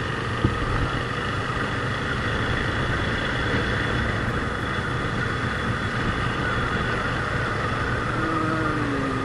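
Motorcycle engine running steadily during a ride, with a constant hum and road noise. A wavering pitched tone comes in near the end.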